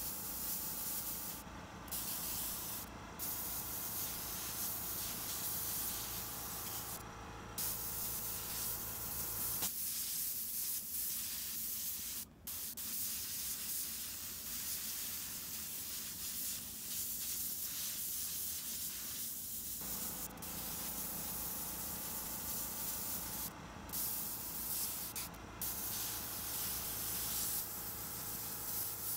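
Bottom-feed airbrush spraying black paint: a steady hiss of air and paint that breaks off briefly about six times as the trigger is let go between strokes. A steady hum runs underneath, stops about ten seconds in, and comes back about ten seconds later.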